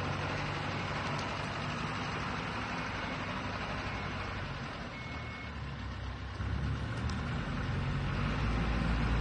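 Motor vehicle engines running with a steady low hum over traffic noise; a deeper rumble comes in and grows louder about six and a half seconds in.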